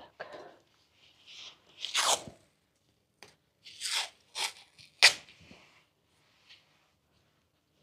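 Adhesive tape being pulled off the roll and torn, then pressed over a flexible PVC corner bead at a wall corner: a string of short crackling rasps, the sharpest and loudest about five seconds in.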